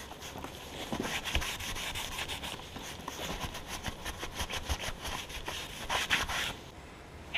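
A scouring pad is rubbed back and forth in quick strokes over the rusty cast-iron slideway of a 7307GT metal shaper, scrubbing off surface rust. The rubbing stops about six and a half seconds in.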